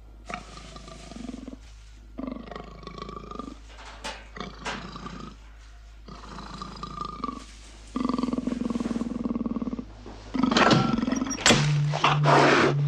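Big cats growling and snarling in a series of separate calls with short pauses between them. The snarls turn much louder near the end.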